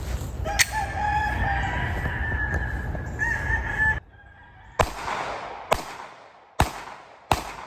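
Glock 19X 9mm pistol firing: one shot about half a second in, then after a sudden drop in the background noise about four seconds in, four more shots at a steady pace, roughly one a second. Over the first part a long, high, held call sounds beneath a steady low rumble.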